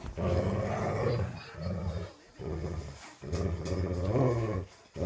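Dogs growling while play-fighting: four long growls with short breaks between them.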